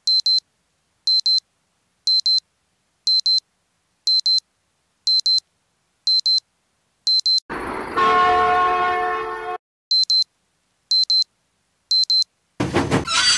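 Electronic alarm beeping, short double beeps about once a second, from the train-control display as two trains close on the same track. About seven and a half seconds in, a train horn sounds a steady chord for about two seconds. The beeping then resumes, and a burst of noise cuts in near the end.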